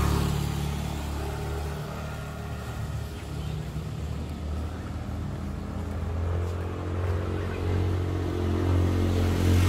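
A motor vehicle engine running close by: a steady low hum that grows louder near the end.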